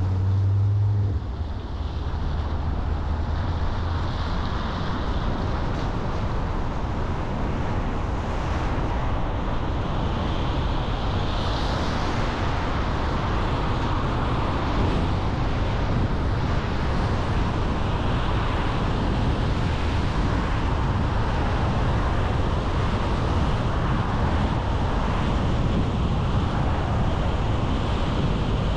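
Steady road noise of a car driving, with a low hum that fades out about a second in.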